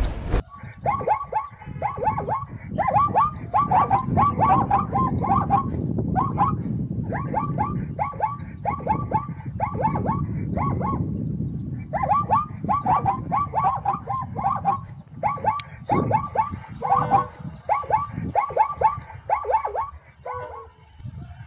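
Zebra barking calls: quick yelping barks repeated in rapid series, several bouts with short pauses between them, over a steady low background rumble.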